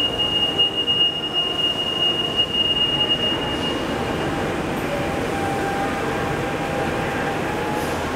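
Link light rail train wheels squealing out of sight in the tunnel: one steady high-pitched squeal that fades out about four seconds in, over a continuous low rumble.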